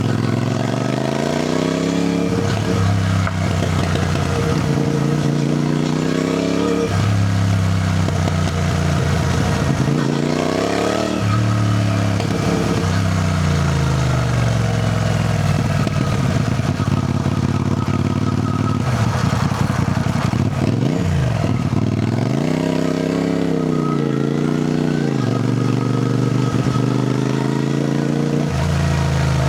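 CFMoto 450NK motorcycle's parallel-twin engine under way. The revs climb and fall repeatedly as it accelerates and shifts, with a sharp dip and rise about twenty seconds in.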